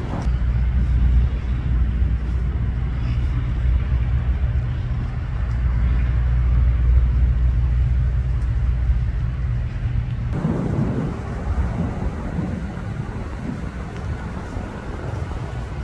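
Outdoor street ambience: a low, steady engine rumble from idling vehicles and traffic. About ten seconds in, the rumble cuts off and gives way to a rougher noise of traffic and wind on the microphone.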